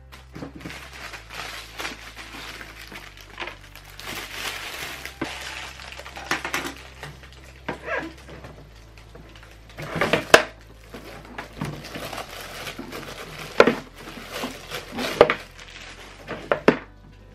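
Plastic protective film crinkling and rustling as it is pulled off a clear hard-plastic lid, followed by sharp clicks and clacks of the hard plastic lid panels being handled and opened, the loudest knocks from about ten seconds in.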